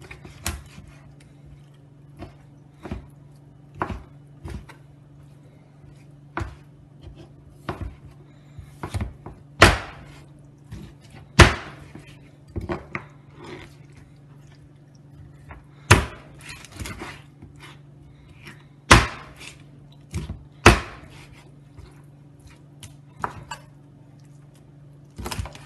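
Kitchen knife chopping raw chicken into pieces on a plastic cutting board: irregular sharp knocks of the blade striking the board, with about six much harder chops standing out.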